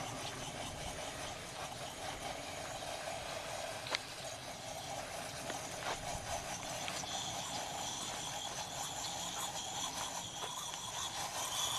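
Horse drinking from an automatic waterer bowl: a steady wash of noise with a couple of small knocks, and a thin high hiss that joins about halfway through.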